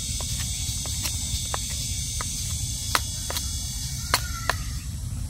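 Irregular short knocks and taps of a small chopper's blade against a hand-held wooden stick, the loudest about three and four seconds in, over a steady chorus of insects.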